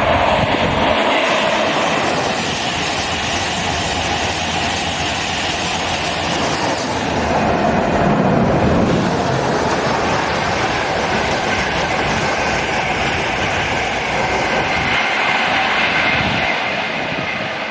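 Electric express passenger train passing at speed on overhead-wired main line track: a steady rumble of wheels on rail with clatter from the rail joints. It is loudest about eight seconds in and swells again near the end as coaches pass close by.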